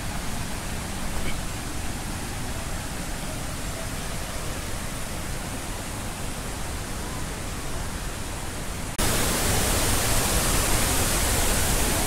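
Steady rushing noise of a waterfall. It jumps abruptly louder and brighter about nine seconds in.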